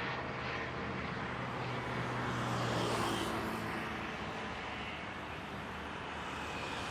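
Car engine hum and road noise heard from inside a moving car, swelling a little partway through.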